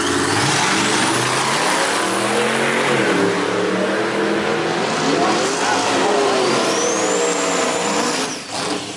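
Drag-racing car engines revving loudly, their pitch rising and falling, over a heavy background of engine noise. About two-thirds of the way in, a high whine rises and holds briefly.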